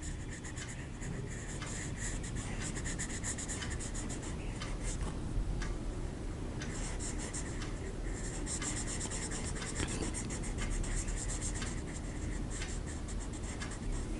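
Colouring in a picture on paper: quick back-and-forth scribbling strokes of a colouring tool, with a couple of short pauses.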